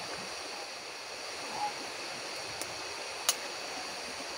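Steady rushing of a large river, with frogs calling in a steady high chorus over it. Two sharp clicks come past the middle, the louder one about three seconds in.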